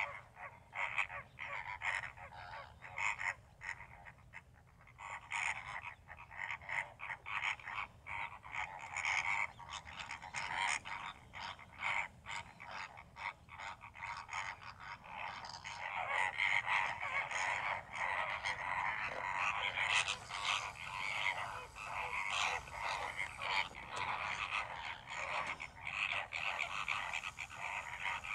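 A flock of greater flamingos calling: a continuous chatter of short calls packed closely together, growing denser and louder about halfway through.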